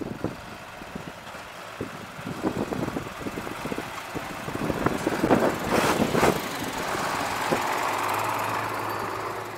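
A tractor's engine running as it pulls a farm trailer past close by, with irregular knocks and rattles from the trailer and running gear that grow louder around the middle, then settle into a steadier engine hum as it drives off.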